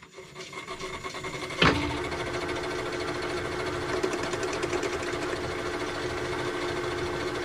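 Metalworking lathe starting up and gathering speed, with a sharp clack about one and a half seconds in. It then runs steadily with a steady whine, spinning a rough cylinder casting on a mandrel between the chuck and the tailstock centre.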